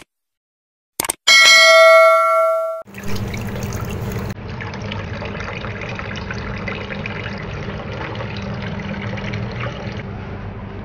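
A bright chime rings for about a second and a half, then tap water runs steadily, splashing into a metal bowl in a steel sink.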